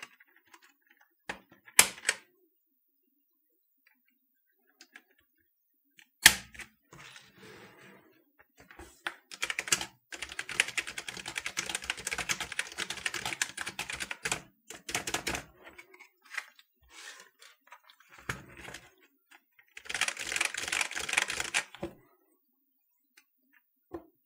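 Clicky SMK dome-with-slider keyswitches of a Canon TypeStar 4 keyboard being typed on fast: a long run of rapid key clicks from about nine seconds in, and a shorter run near the end. Two loud single clacks come in the first six seconds.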